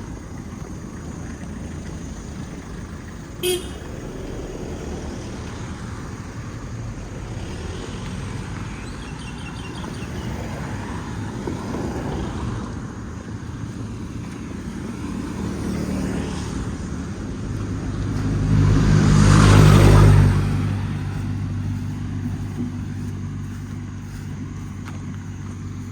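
Motor traffic going by: a short horn toot about three seconds in. A vehicle passes close later on, loudest near the end of the second third, and its low engine hum carries on after it.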